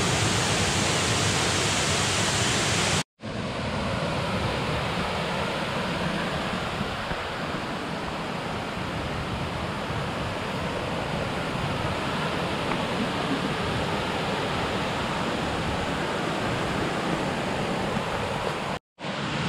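Waterfall's falling water: a steady, even rush, cut off briefly by short silent gaps about three seconds in and again near the end.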